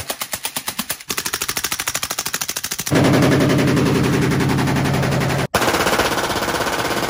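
Full-auto gunfire in short edited strings. First a suppressed Arsenal SLR-107 AK-pattern rifle fires subsonic rounds at about ten shots a second. From about three seconds in, a louder burst comes from an unsuppressed short-barrelled Arsenal SLR-104UR, and near the end from a Glock 18 machine pistol on full auto.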